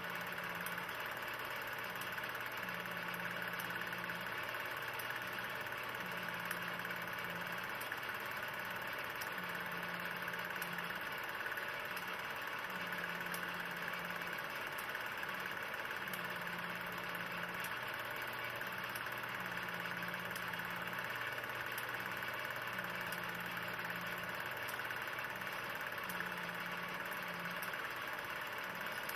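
16 mm film projector running: a steady mechanical hum and hiss, with a low tone that comes and goes about every second and a half.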